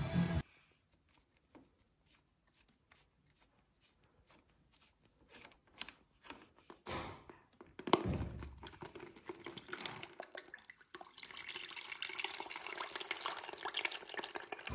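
Used engine oil from a KTM EXC pouring out of the opened drain plug into a metal drain bowl. A spattering liquid stream starts about eight seconds in, after a few faint clicks and handling noises as the plug is loosened.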